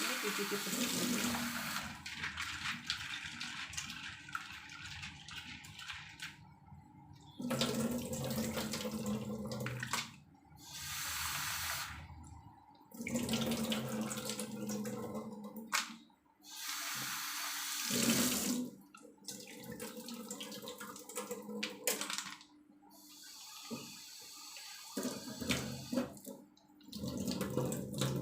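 Water from a tap running into a sink and splashing as something is washed under it, stopping and starting several times in stretches of two or three seconds, softer in the second half.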